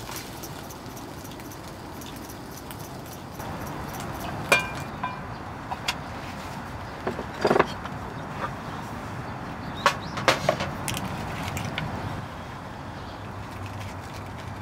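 Chopsticks and kitchenware clinking and knocking against a frying pan and a plate. A few sharp clinks come scattered through the middle, some with a short ring, over a steady background hiss.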